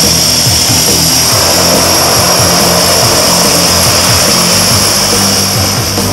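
Single-engine floatplane taxiing on the water, its engine and propeller running with a steady high whine over background music. The aircraft sound fades near the end as the music carries on.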